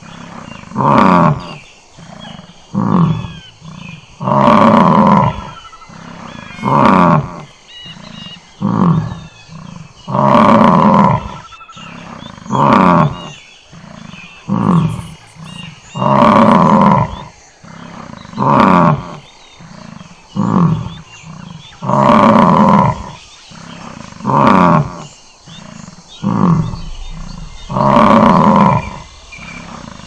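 Bison bellowing: one long, deep roar about every six seconds, each followed by three or four shorter calls, repeating in the same pattern.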